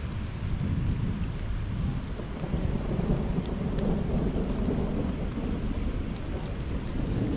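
Low rolling rumble of distant thunder, swelling about a second in and rumbling on without a break.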